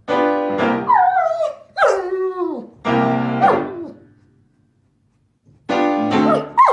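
A dog howling in falling, wavering cries over steady piano notes. The sound breaks off for about a second and starts again near the end.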